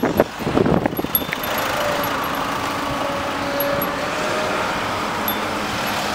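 A motor vehicle's engine running steadily close by, with camera-handling knocks and rustling for the first second or so.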